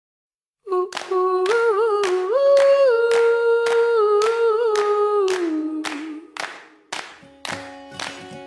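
Background music: a song opening with a voice humming a wordless, gliding melody over a steady beat of claps about twice a second, with instruments coming in near the end.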